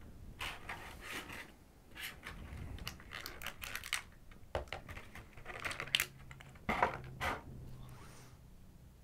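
Thin clear plastic blister tray being handled and flexed while a small figure is pried out of it: irregular crinkles, crackles and clicks of plastic.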